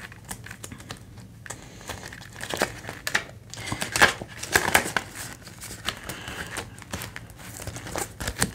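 Clear plastic zip pockets of a cash binder crinkling and rustling as they are handled and a page is turned, while a laminated placeholder card is slid about. The crackles come irregularly and are loudest around the middle.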